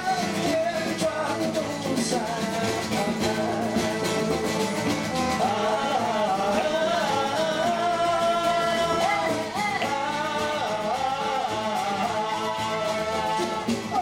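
Live band music: a man singing into a microphone over strummed acoustic guitar and a second guitar.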